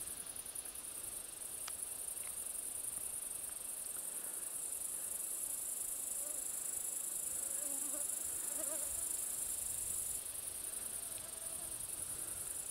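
Steady, high-pitched chorus of grasshoppers and crickets chirring in meadow grass. A few faint wavering calls come in about six to nine seconds in.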